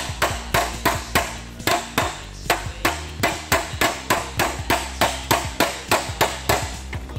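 A hammer beats out the dent in a bus's side skirt panel, striking repeatedly in a steady rhythm of about three sharp metallic blows a second.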